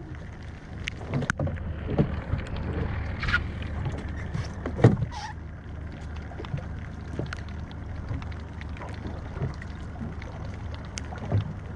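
Small fishing boat at sea: a steady low rumble with scattered knocks and taps from gear being handled on deck, one louder knock about five seconds in.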